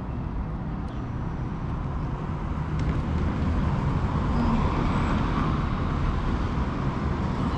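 Street traffic: cars driving past on a city street, the noise swelling about halfway through as a car goes by close.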